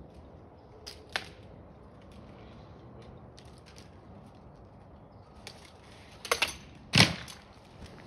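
A few sharp knocks and cracks: one about a second in, a quick cluster just past six seconds, then a loud thump about seven seconds in.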